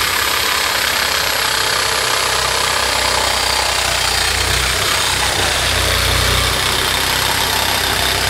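Reciprocating saw cutting through a steel exhaust pipe flange, its motor running steadily at full speed with a high whine over the rasp of the blade.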